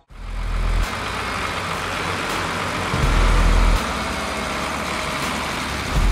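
Farm tractor engines running in deep mud, under a steady rushing noise, with three louder low rumbles of under a second each: near the start, about halfway through and near the end.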